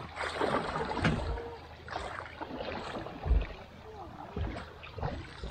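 Oars rowing an inflatable fishing raft: water swishing with the strokes and knocks from the oars and frame, the loudest a low thump about three seconds in.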